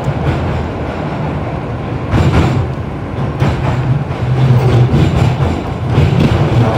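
Toei Oedo Line linear-motor subway train running through a tunnel, heard from inside the front car: a steady low rumble with louder wheel-and-rail rattles about two, three and a half, and six seconds in.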